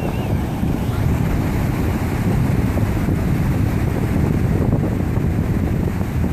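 Wind buffeting the microphone over the steady wash of ocean surf breaking on a rocky shore.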